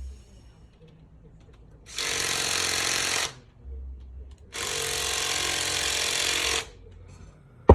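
A power tool running in two bursts, about a second and then two seconds long, loosening bolts in a Harley-Davidson Milwaukee-Eight engine's cam compartment. A single sharp click near the end.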